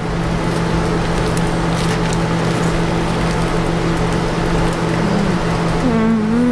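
Campfire crackling and popping with scattered sharp snaps, over a steady low hum.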